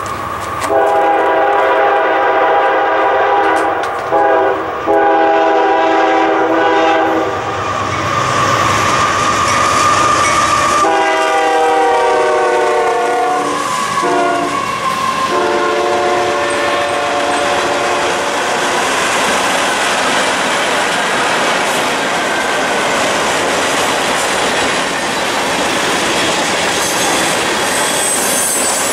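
CSX freight locomotives sounding their horns in two series of long blasts, the second falling slightly in pitch as the locomotives pass. Then the freight cars roll by with a steady clickety-clack over the rail joints and a faint high wheel squeal near the end.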